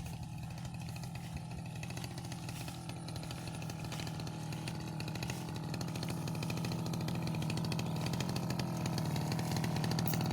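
Brush cutter engine running steadily while it cuts rice stalks, getting gradually louder.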